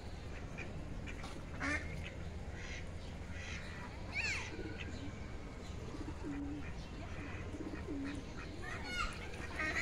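Ducks quacking in short, scattered calls, with a few quick high chirps from other birds about four seconds in and again near the end, over steady low background noise.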